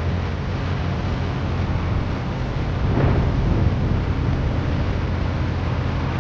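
Tractor engine running steadily, with wind buffeting the microphone and a brief louder swell about three seconds in.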